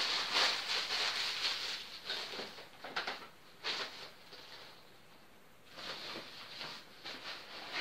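Thin plastic bin bag crinkling and rustling as it is handled and folded, with two sharper crackles about three seconds in, a short lull, then more rustling.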